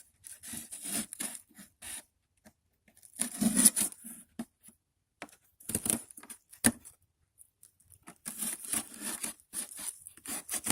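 Cardboard being cut and torn with a knife to widen a hole, in irregular scraping bursts with pauses between, and one sharp snap about two-thirds of the way in.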